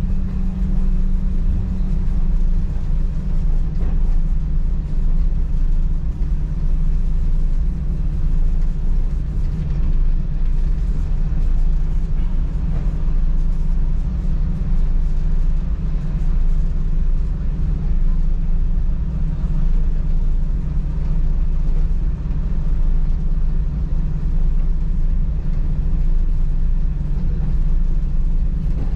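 Class 117 diesel multiple unit's underfloor diesel engines running, heard from inside the driving cab as the train moves slowly along the line: a steady low drone that holds without pause.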